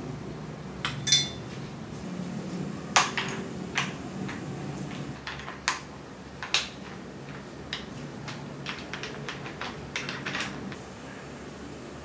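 Sharp metal clinks and clicks of a saddle's steel rails being seated in a seatpost clamp and a hex key working the clamp bolt, about a dozen separate knocks, the loudest about one and three seconds in.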